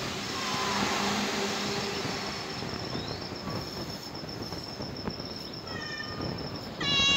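Small kitten meowing a few times: faint short calls early on and about six seconds in, then a louder falling meow near the end. Under it runs a steady background noise with a high, fast insect-like trill.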